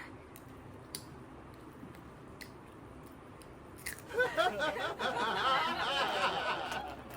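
Chewing and crunching on chilies close to the microphone, starting about four seconds in after a few faint clicks.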